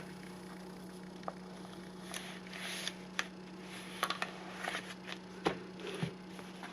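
Paper being handled on a journal page: scattered light rustles and soft taps as a paper pocket is positioned and smoothed down, over a steady low hum.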